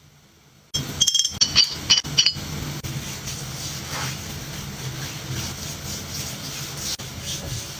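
A few quick, ringing clinks of glass about a second in, then a steady hiss.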